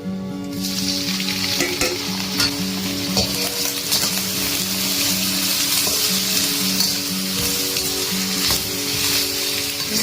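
Food sizzling steadily in a hot pan as it is stir-fried, with scattered scrapes and clicks of the utensil. Background music plays underneath.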